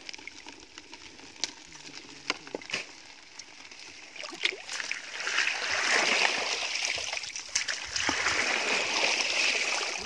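Rustling and crackling of dry grass and plant debris being handled and stepped through. A few sharp clicks come in the first half, and from about halfway a denser, louder rustle takes over.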